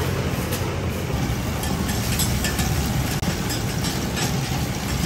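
Electric dough-sheeting machine running with a steady low hum as dough is fed between its rollers, with scattered light clicks.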